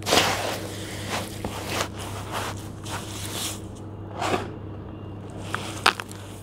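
Hands squeezing and kneading damp charcoal-and-sand mix in a plastic tub: a run of wet, gritty squishes and crunches about a second apart. Near the end, crumbling handfuls with small stones drop back in with a couple of sharp clicks.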